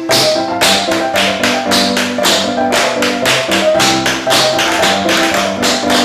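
Metal-tipped tap shoes striking a wooden floor in quick, dense runs of taps: two layers of the same tap routine, the second starting one beat after the first (sound stacking). Backing music with held notes plays underneath.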